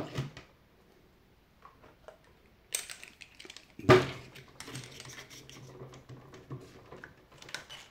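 Clicking and rattling of a cordless drill's keyless chuck being twisted by hand to grip a small Torx bit. There is one sharp knock about four seconds in, the loudest sound.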